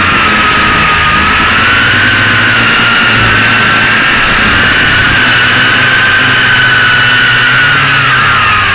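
Motor and propeller whine of an FPV model plane, heard from its onboard camera, with rushing air noise. The whine holds a steady pitch that drifts slowly up and down with the throttle.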